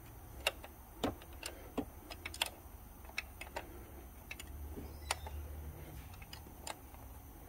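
Irregular sharp metal clicks from a hand tool tightening the bolt of the A/C line manifold fitting into the aluminum A/C compressor, about a dozen in all, over a faint low hum.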